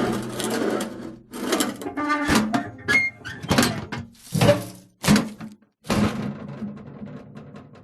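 Rusty metal box being handled: a run of short scraping and squeaking bursts with knocks, separated by brief pauses, with a squeal a couple of seconds in. A longer scrape near the end fades away.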